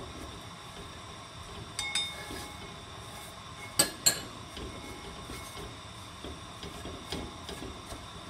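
Julienned radish being stir-fried in a heavy black pot, wooden utensils stirring and knocking against the pot over a faint steady hiss. A light clack comes about two seconds in, two sharp knocks close together about four seconds in, and a few lighter taps near the end.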